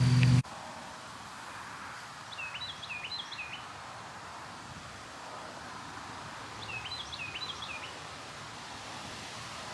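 Evening breeze rustling through tree leaves, a steady soft hiss, while a bird sings two short phrases of quick chirping notes, one about two seconds in and one near seven seconds. A loud low rumble cuts off abruptly about half a second in.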